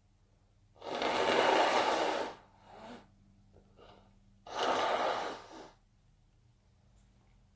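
A person's loud gasping breaths during an induced sneezing fit: two long gasps, the first about a second in and the second about four and a half seconds in, with two short quieter breaths between.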